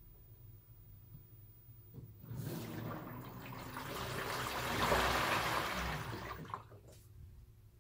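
Water spraying into the drum of an LG Twin Wash Mini washing machine. It starts about two seconds in, builds for about four seconds and cuts off sharply.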